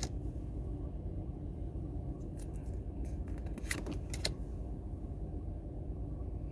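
Pokémon trading cards being handled and flipped through, with a few short, crisp card slides and snaps, over a steady low rumble.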